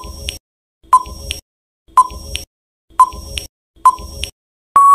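Quiz countdown-timer sound effect: five short beeps about a second apart, then a longer steady tone near the end as the timer runs out.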